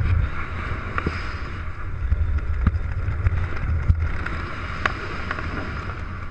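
Wind buffeting a camera microphone during descent under an open parachute canopy: a steady low rumble with a few sharp clicks scattered through it.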